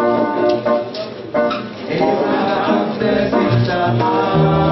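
Gospel singing by several voices over instrumental backing, with low bass notes changing underneath.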